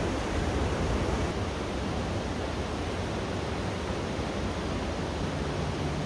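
Steady rushing noise of fast-flowing river current. A faint low hum joins near the end.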